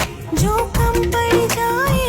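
Background music: a Bollywood-style song with a steady beat and melody lines, in a stretch without sung words.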